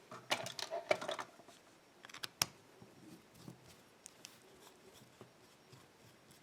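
Small metallic clicks and rattles from handling a Russwin pin-tumbler lock cylinder as it is taken apart for gutting. A busy cluster of rattling comes in the first second, a few sharp clicks come about two and a half seconds in, then faint scattered ticks.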